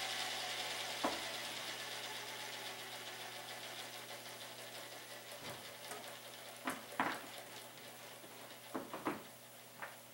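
Align T-Rex 500 helicopter's unpowered main rotor and torque-tube drivetrain spinning down freely after a hand spin: a whooshing hiss that fades steadily, with a few light clicks about a second in and again in the second half.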